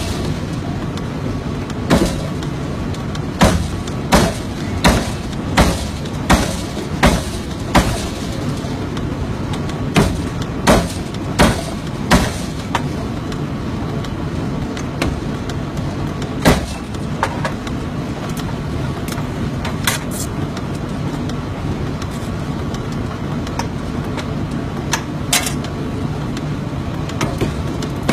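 Forging hammer striking a red-hot metal billet in its multi-impression dies: a run of sharp metal-on-metal blows, about one every 0.7 seconds, then a few scattered ones, over the steady hum of shop machinery.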